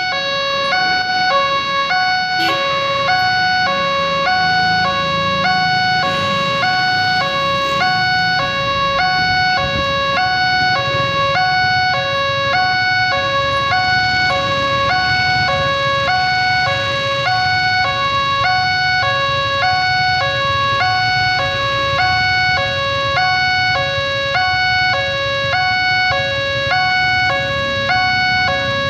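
Railway level-crossing warning siren sounding: an electronic two-tone alarm alternating steadily between a lower and a higher note, about one pair a second, over a low rumble.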